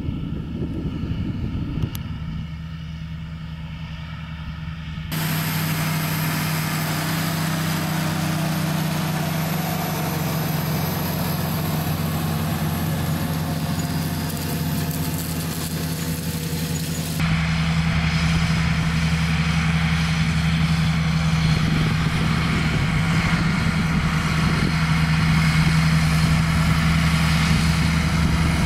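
John Deere 8320R tractor's diesel engine running steadily under load, pulling a planter, with a low, even hum. The sound changes abruptly about five seconds in and again about seventeen seconds in. The middle stretch has a loud, even hiss laid over the engine.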